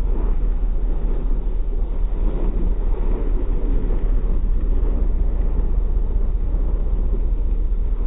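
Subaru Impreza's flat-four engine running hard and steady as the car drifts sideways through snow, its wheels spinning and throwing up snow.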